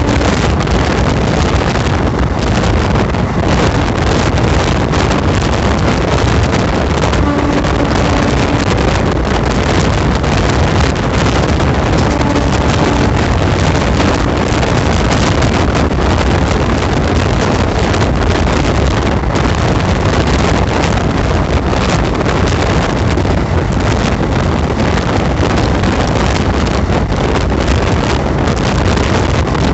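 Steady loud rush of an Indian passenger train running at speed, heard from an open coach door, with wind buffeting the microphone.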